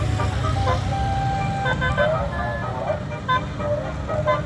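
A bus engine rumbles close by while a telolet basuri horn plays a run of short notes that change pitch every fraction of a second.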